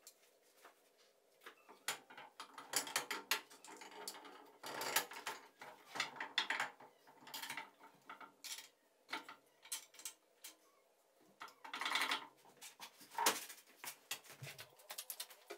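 Hand work on a milling machine's spindle head: irregular metallic clicks, knocks and scrapes of tools and parts, coming in quick clusters at times.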